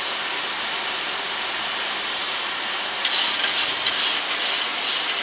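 Steady rushing flight-deck noise of a Boeing 737-800 on approach with the landing gear down: airflow and engines. About three seconds in, a louder, fluttering hiss joins for a couple of seconds.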